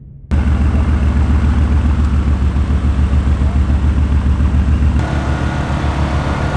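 Mercedes-AMG GT S's twin-turbo V8 idling: a deep, steady, pulsing engine sound that cuts in suddenly just after the start and changes slightly in tone about five seconds in.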